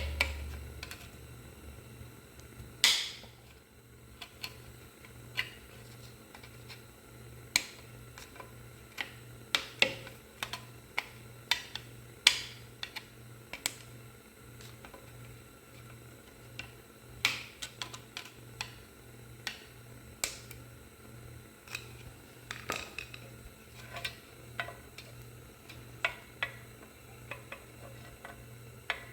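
Hand tools clinking and tapping on metal in irregular, scattered strikes while a spring clip is worked loose from a vehicle frame part; the loudest knocks come about three, twelve and twenty seconds in, over a faint steady pulsing hum.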